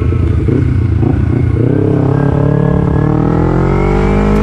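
Sport motorcycle engine accelerating, its pitch rising steadily from about a second and a half in.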